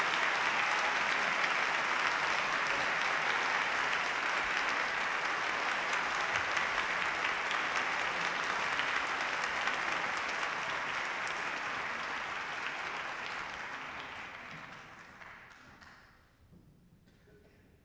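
Concert audience applauding steadily after an opera aria, the applause fading away and stopping over the last few seconds.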